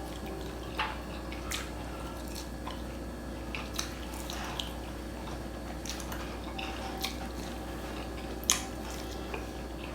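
A person eating chicken curry with their hands: scattered small clicks and wet chewing sounds, a couple louder about a second in and near the end, over a steady low hum.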